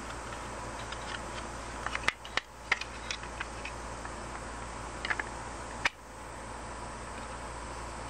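Hard plastic clicks and knocks as the parts of a handheld fan's housing are handled and fitted together: a cluster about two seconds in and another just before six seconds, over a steady hiss.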